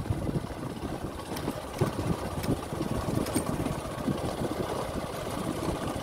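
Motor scooter running as it rides along, heard from the rider's seat, with wind rumbling on the microphone.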